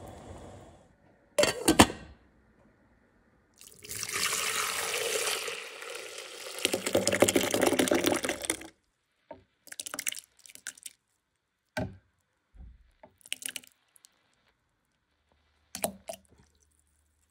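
Water running for about five seconds, growing louder and fuller partway through, with a sharp knock before it and scattered short clicks and drips after it stops.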